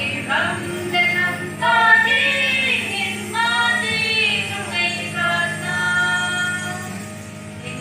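A group of women and children singing a song together into microphones, amplified through a stage sound system.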